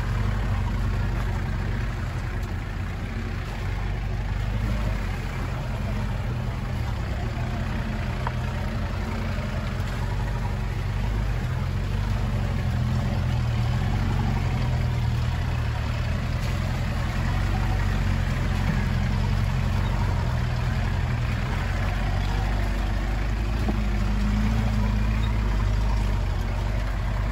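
Land Rover 4x4 engine running steadily, a continuous low drone with rough track noise over it.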